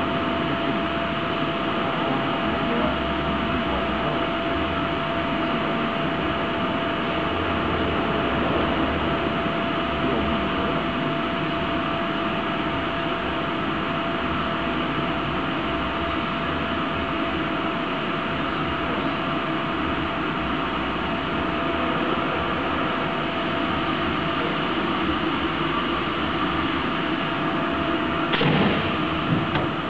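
Steady machine hum and fan noise of a factory floor, with a constant mid-pitched whine, from a high-frequency welding machine and the workshop fans around it. A short, louder burst of noise comes near the end.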